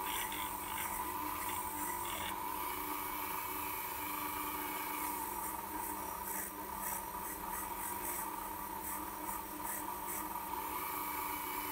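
Dremel rotary tool running with a steady whine, its bit working over a steel gearbox gear to clear light surface rust, with a faint scratching.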